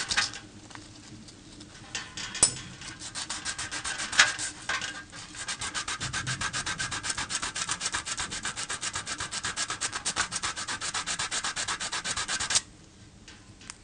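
100-grit sandpaper rubbed by hand over a stainless steel sheet in quick back-and-forth strokes, a scratchy rasp that scuffs the surface ready for soldering. The strokes are lighter and uneven at first, then steady and fast, and stop abruptly near the end.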